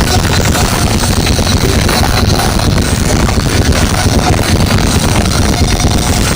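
Punk band playing live at high volume, so overloaded on the recording microphone that it comes through as a dense, distorted wash with no clear notes.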